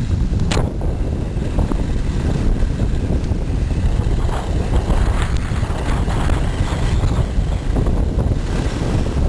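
Wind buffeting the microphone of a camera carried by a skier going downhill, a loud, steady low rumble. Now and then there is a brief scrape of skis carving on hard-packed, tracked snow.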